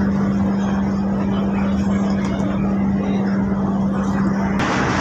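Steady low drone of the ferry's engines, a constant hum over a rushing noise. Near the end the hum stops suddenly and a brighter hiss takes over.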